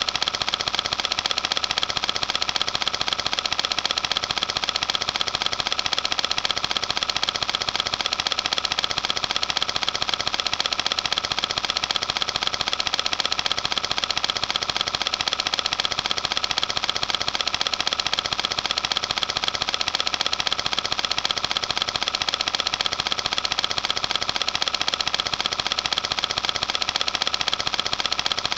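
A running film projector: a steady, rapid mechanical clatter with a constant high hum, unchanging.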